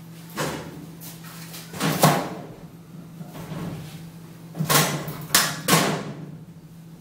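Sharp knocks and clatter from a steel kitchen wall cabinet and its doors being handled and fitted: about five knocks, the loudest around two seconds in and a quick cluster of three near five to six seconds, over a steady low hum.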